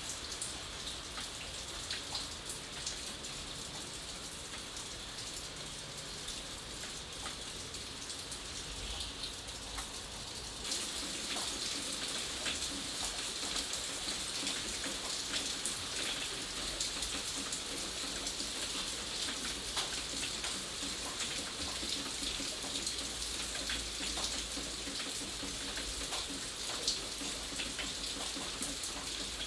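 Steady rain with many individual drops ticking close by. About ten seconds in it abruptly becomes louder and fuller.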